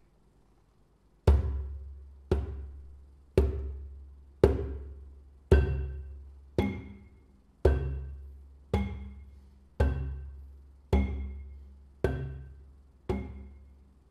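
Heavy drum thuds, about one a second, a dozen in all, each ringing out briefly: the footsteps of an approaching elephant, played as a sound effect.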